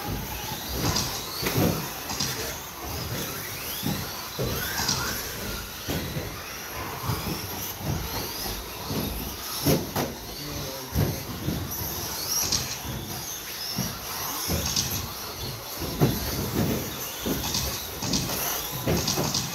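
Several electric RC stadium trucks with 13.5-turn brushless motors racing on a carpet track: motors whining up and down in pitch as they accelerate and brake, with frequent sharp knocks and clatters.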